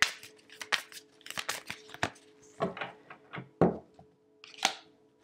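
Tarot cards being shuffled and handled: irregular crisp clicks and rustles of the card stock, with short pauses between them.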